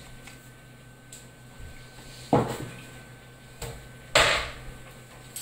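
Two loud knocks about two seconds apart, each dying away quickly, with a fainter click between them.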